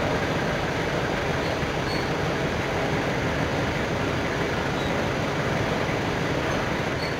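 Belt conveyor running: a steady mechanical noise of the belt travelling over its rollers, even throughout.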